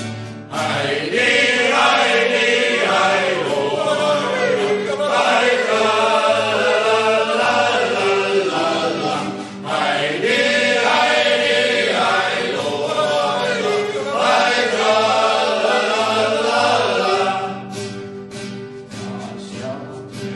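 Male choir of German mountain troops (Gebirgsjäger) singing a soldiers' song in long phrases, growing quieter about three seconds before the end.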